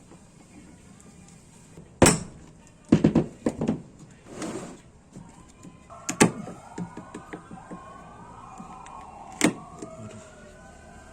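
A few sharp knocks and clatters of hard parts being handled, with a quick run of knocks a little after the first one. In the second half a wavering tone glides up and down.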